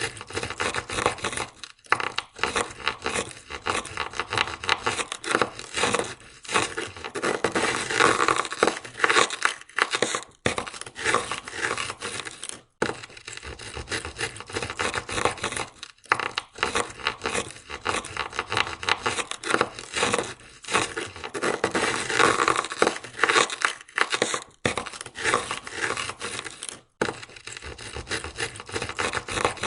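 Ice scraper scraping ice off a car window in rapid, continuous strokes, with a few brief pauses.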